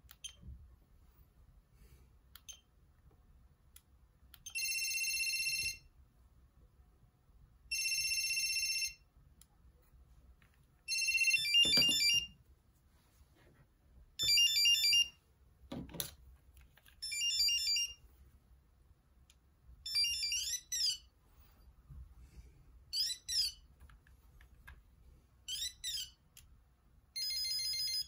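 Sony CMD-Z5 mobile phone (2000) playing its built-in electronic ringtones, several different tunes in short snippets of about a second each, with pauses between. The later snippets are quick rising and falling beeps.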